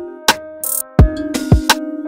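Background music: a steady drum beat with punchy kick and snare hits over sustained chords.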